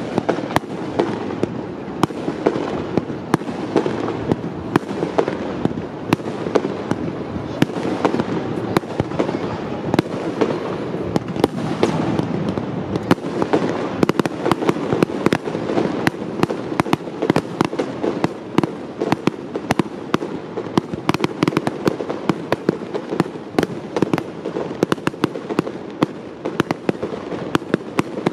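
Aerial fireworks shells bursting in quick succession: a dense, unbroken string of sharp bangs and pops, several a second, over a steady low rumble.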